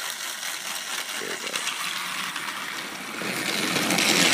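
Battery-powered Thomas & Friends Trackmaster toy engine (Busy Bee James) running along plastic track, its small electric motor and gearbox making a steady mechanical noise that grows louder near the end.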